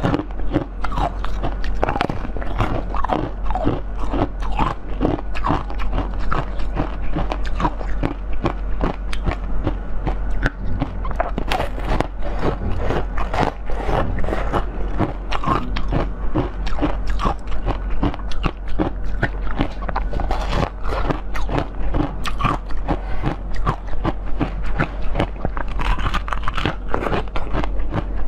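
Close-miked biting and chewing of a blue corn-cob-shaped jelly sweet: a dense, continuous run of sharp clicks and crunches as the kernels are bitten off and chewed, with a steady low hum beneath.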